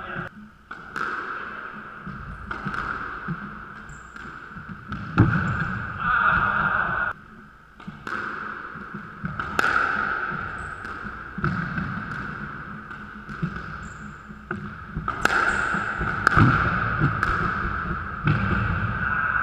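Squash ball struck by racquets and smacking off the court walls and floor during a rally: sharp hits at irregular intervals, one every second or two, each ringing on in the court's hard-walled echo.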